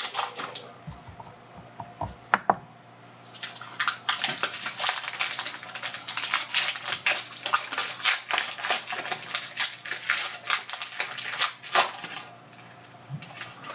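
A trading-card pack's wrapper being torn open and crinkled by hand, a dense run of crackling from about three seconds in until near the end, with only a few scattered crackles before.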